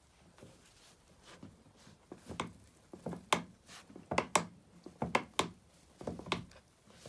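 Dry hay bedding crunching and rustling in a string of short, sharp crackles as Central Asian Shepherd puppies scramble about on it, starting about two seconds in.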